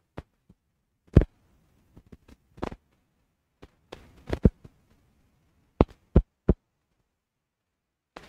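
About a dozen short, sharp knocks and clicks at uneven intervals, the loudest about a second in.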